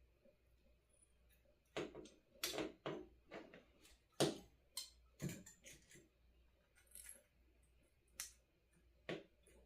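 Irregular light clicks and taps of small hard parts being handled: an LED kit's circuit board and components being pushed and adjusted by hand, with the loudest tap about four seconds in.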